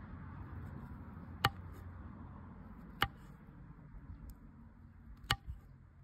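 Three sharp knocks of a utensil on a hard surface, each with a brief ring, spaced about a second and a half and then two seconds apart, over a faint low background hum.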